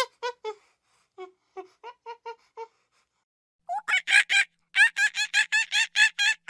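Monkey chattering: quick runs of short, pitched calls, about five a second. A quieter run fades out early, and a louder burst of about a dozen calls starts just past the middle.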